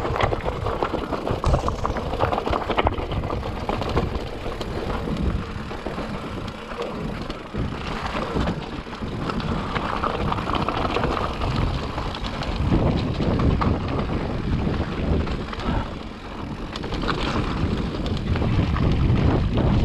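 Electric mountain bike rolling down a loose stony track: tyres crunching over the rocks with a continuous clatter and rattle from the bike, and wind noise on the microphone.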